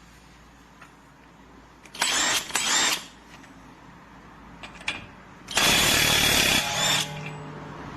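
Cordless impact wrench running in bursts: two quick bursts about two seconds in, then a longer burst of about a second and a half near the end.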